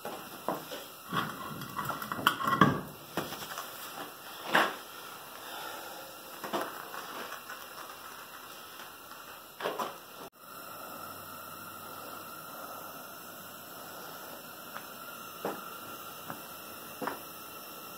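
Scattered clunks and knocks as a tyre and wheel are pulled off a jacked-up truck's hub and handled, loudest a few seconds in. Then, after a cut, a steady low hum with a couple of light taps.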